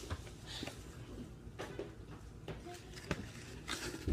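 Doll packaging being worked open by hand: scattered small clicks, taps and rustles of plastic and cardboard as the doll is pulled free of its hot-glued box.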